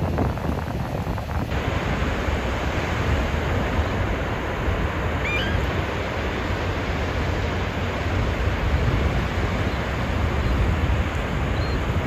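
Ocean surf breaking and washing in, a steady hiss, with wind rumbling on the microphone.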